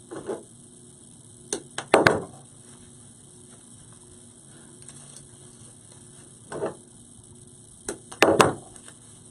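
Sharp clicks and snaps of hands working artificial flowers onto a floral arrangement, in two clusters about six seconds apart, each preceded by a softer knock, over a faint steady hum.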